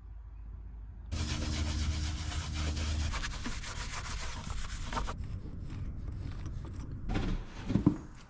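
Car cleaning: a small machine runs with a steady hissing whir and low hum for about four seconds, then stops. Scattered rubbing and knocking follow, with one sharp knock near the end.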